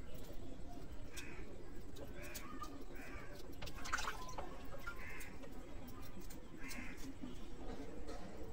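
Crows cawing repeatedly, short harsh calls about once a second, over faint scratchy clicks of scales being scraped off a raw hilsa fish by hand.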